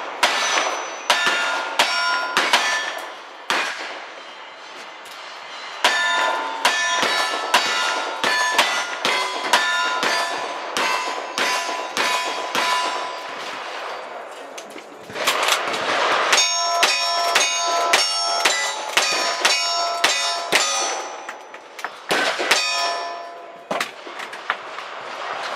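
Single-action revolver shots in quick strings, each followed by the ring of struck steel targets. There are short pauses about four seconds in, near the middle and near the end.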